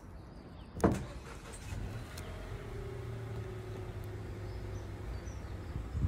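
One sharp knock, then a motor-vehicle engine running with a steady hum for several seconds.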